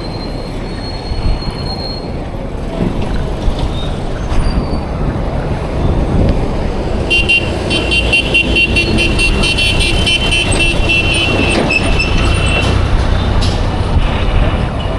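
Road traffic rumbling steadily, with a vehicle horn sounding about halfway through for around six seconds: a high, fast-pulsing multi-tone blare.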